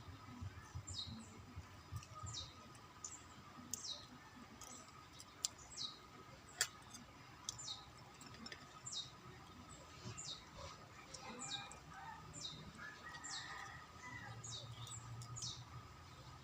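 A bird chirping repeatedly, short high notes that fall in pitch, about one a second, faint. A few sharp clicks stand out about five and six and a half seconds in.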